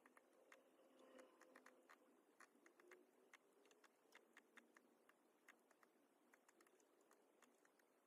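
Faint, irregular clicks of a laptop keyboard and mouse being worked, a couple a second.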